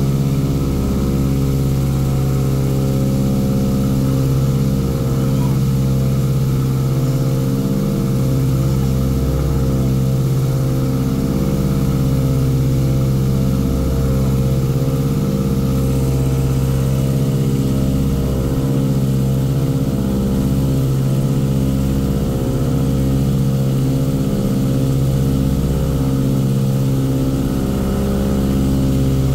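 Ford Trimotor's radial engines and propellers droning steadily in cruise flight, heard from inside the cabin.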